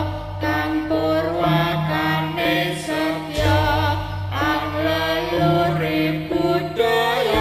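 Javanese jaranan dance accompaniment music: a singer's wavering, chant-like vocal line over traditional instrumental backing, with long low tones underneath.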